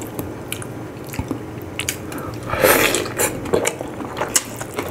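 Close-miked mukbang eating sounds: chewing of boiled pork, with wet squishing and clicks as pork is dipped into a fish-sauce-and-calamansi dip and mixed into rice by hand. A louder wet burst about two and a half seconds in.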